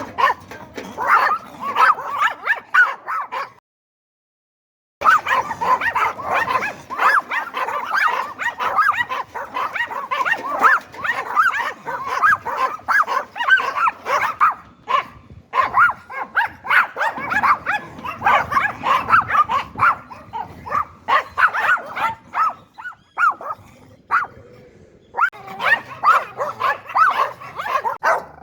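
Yorkshire terrier barking in rapid, continuous runs of sharp barks, with a silent break of about a second and a half about four seconds in.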